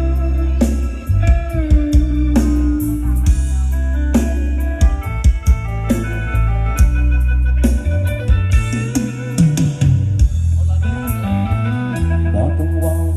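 Live band playing loud through a large PA system: electric guitar lead line over bass and drum kit, picked up by a camera's microphone.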